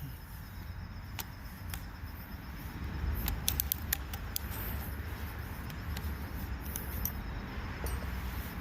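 Scattered light clicks and knocks of handling a hammer drill and a large bit, over a low outdoor rumble; the drill motor is not running.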